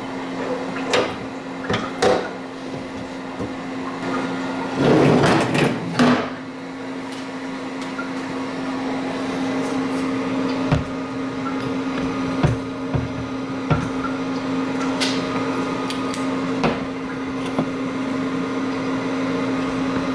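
Grizzly G0602 CNC lathe running at a steady pitch with coolant spraying, while the parting tool cuts off a piece of aluminium tube. A few clicks in the first two seconds, a louder rushing burst lasting about a second around five seconds in, and scattered sharp ticks later on.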